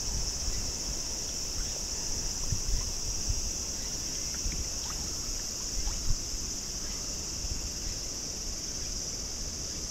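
Steady rushing of river water, with a constant high-pitched insect drone over it and a few faint knocks.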